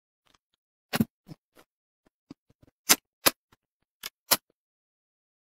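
Close-miked eating sounds from biting and chewing oil-fried braised fish: six sharp crunchy clicks in three pairs about a second apart, with fainter mouth sounds between.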